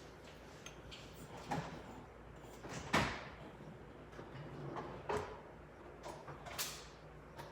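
Kitchen knocks and clatters, four short sharp ones, the loudest about three seconds in, over a faint steady low hum.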